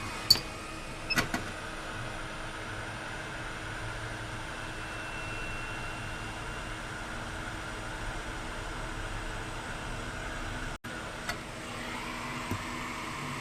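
Steady mechanical whirring hum, like a small motor or fan running, with a few sharp clicks about a second in and again near the end.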